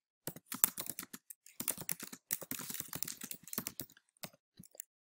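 Typing on a computer keyboard: a quick run of key clicks for about four seconds, then a few scattered taps.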